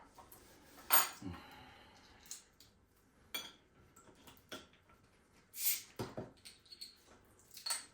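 Tableware at a meal: a handful of separate clinks and knocks of bowls, plates and chopsticks, spread through a quiet stretch.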